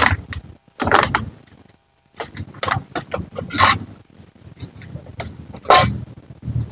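Ketoprak being prepared at a street cart: a run of short, separate bursts of handling noise, with plastic crinkling and utensils clinking against plates and bowls. The sound drops out completely for a moment about two seconds in.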